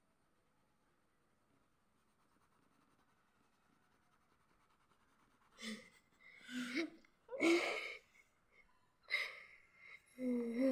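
Nearly quiet for about five seconds. Then a person's short breathy vocal sounds, five in a row, with the last a brief voiced hum near the end.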